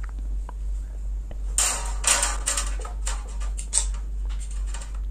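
Short hissing bursts of a WD-40 aerosol spray being applied to the ceiling fan's blade screws to loosen them. The longest hiss comes about one and a half seconds in, followed by several quick ones.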